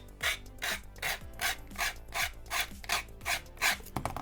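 Sanding stick rasping across the edge of a plastic model part in quick back-and-forth strokes, about three a second, pausing near the end. It is sanding off molding flash, the leftover plastic nubs.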